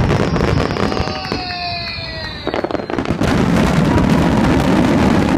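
A fireworks display going off: dense popping and booming, with a falling whistle over the first two seconds that cuts off sharply, followed by a loud, continuous crackling rumble of many shells.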